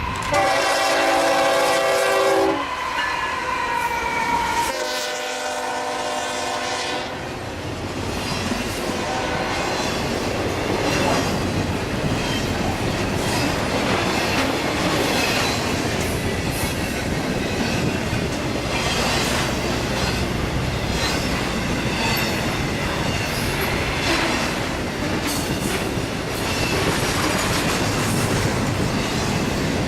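Diesel locomotive horn sounding two long chords, then a train rolling past with its wheels clicking over the rail joints.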